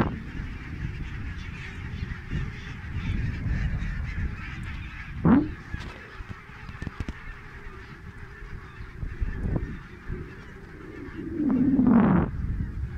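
A large flock of geese honking all together, a dense, steady chatter of many calls, with a low rumble underneath. A brief louder sound cuts in about five seconds in, and a longer one near the end.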